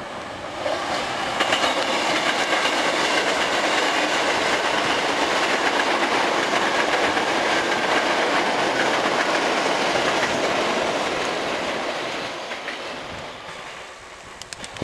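Resistor-controlled Hankyu 3300 series seven-car electric train passing at close range, its wheels clattering over the rail joints. The noise swells about a second in and fades over the last few seconds as the train draws away.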